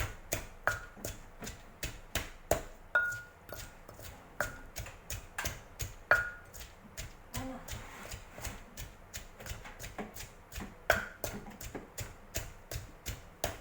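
Knife chopping on a cutting board: a long run of sharp chops at about two to three a second, a few leaving a brief metallic ring.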